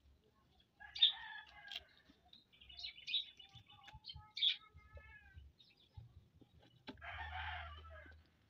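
Chickens calling in the background, with a longer, harsh call about seven seconds in, and small birds chirping between the calls.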